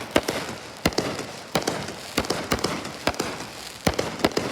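Fireworks going off: a run of sharp cracks and pops, about two a second and irregularly spaced.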